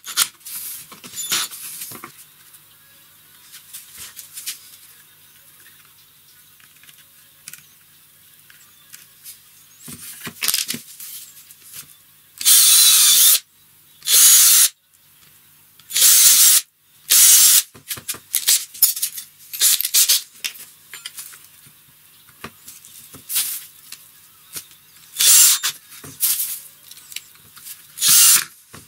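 Cordless drill-driver driving screws into a wooden frame corner and through a metal corner bracket, in several short bursts of under a second each, with clicks of handling between the bursts.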